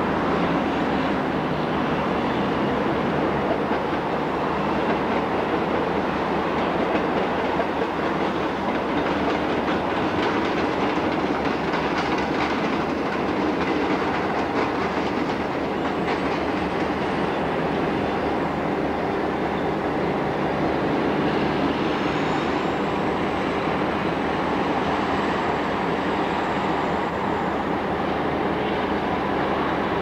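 A train running on the tracks through the yard: steady wheel-on-rail noise.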